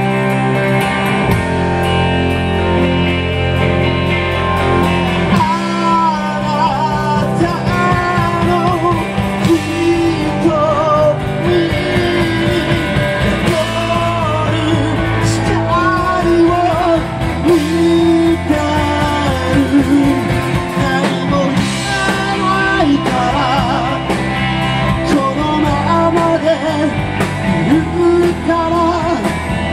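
A rock band playing live: electric bass, electric guitar and drums, with a lead vocal coming in about five seconds in.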